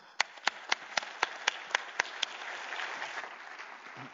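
Audience applauding. Over the first two seconds one person's sharp claps stand out close by, evenly spaced at about four a second. The wider applause swells and begins to fade near the end.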